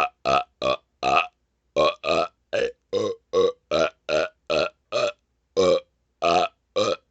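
A man burping rapid-fire: about sixteen short belches in quick succession, two to three a second, with one brief pause about a second and a half in.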